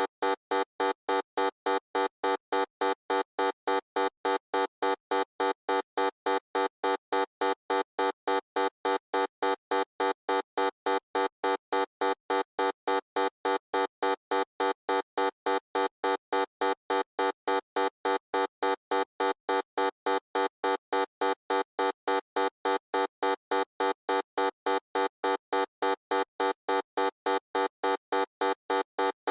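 Loud electronic buzzer pulsing on and off evenly, about three buzzes a second, each a harsh, rasping tone rich in overtones.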